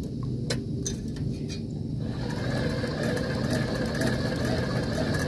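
An engine running steadily with a low hum; about two seconds in, a higher hiss and whine join it. A few light clicks and taps sound in the first two seconds.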